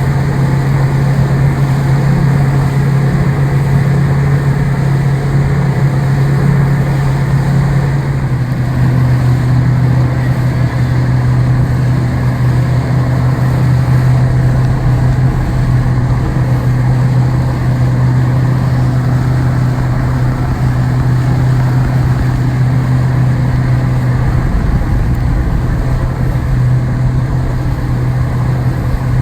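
An engine running steadily with a loud low drone, its pitch shifting slightly about eight seconds in and again near twenty-five seconds.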